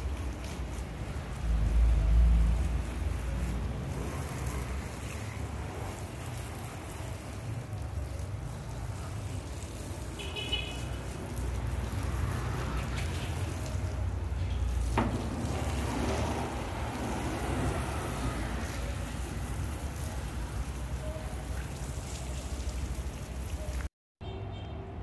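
Water from a hose spraying onto a car's bodywork and windscreen, a steady hiss and patter of water on metal and glass, with low rumbling on the microphone.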